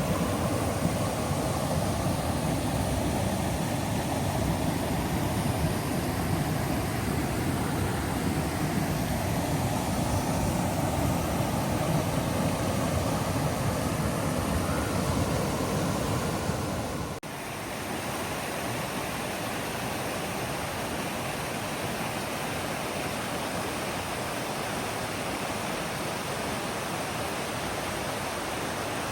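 Waterfall rushing steadily. About two-thirds of the way through the sound cuts off sharply and picks up again, slightly quieter and with less low rumble.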